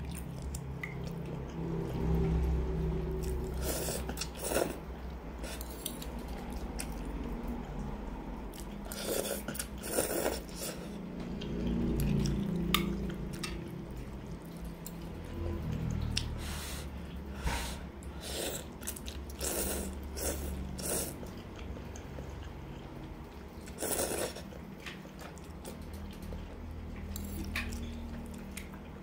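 Close-miked eating of spicy instant noodles: several loud noodle slurps and wet chewing, each slurp lasting about half a second, with short gaps between. A low steady hum runs underneath.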